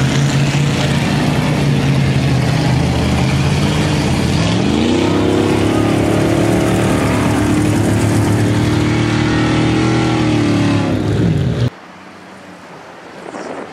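Pickup truck engine revving hard while driving through mud: the pitch climbs about four to five seconds in, holds high, and falls away near the end. Then the sound cuts abruptly to a much quieter engine.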